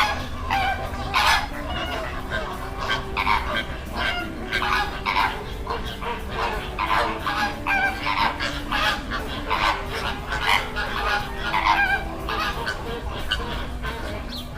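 Flock of greater flamingos honking: short goose-like calls, about one or two a second, overlapping.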